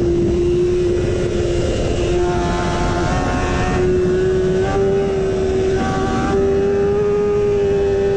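BMW S1000RR sport bike's inline-four engine held high in the rev range at full speed, its note climbing slowly as the bike pulls harder, over heavy wind rush.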